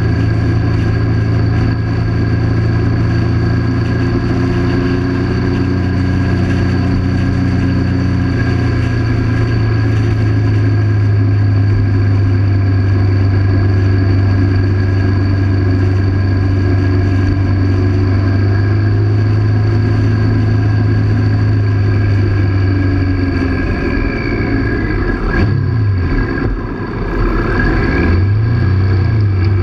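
1998 Triumph Sprint 900's three-cylinder engine running at a steady cruise, with road and wind noise. A few seconds before the end the engine note dips and rises.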